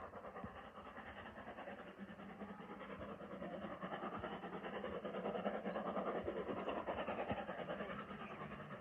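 Steam-hauled train on the move, hauled by the LMS Jubilee class 4-6-0 Sierra Leone. It is a steady running sound that swells to a peak a little past the middle and then eases off.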